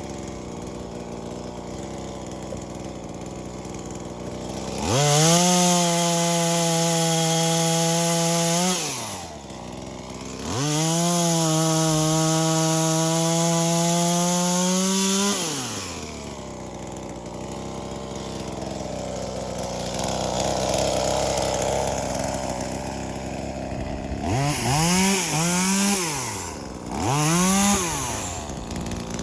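V-Modest 2511T, a clone of the Echo 2511T top-handle two-stroke chainsaw, idling, then held at full throttle twice for about four and five seconds, cutting hardwood, and dropping back to idle between. Near the end it is revved up and down three times in quick blips.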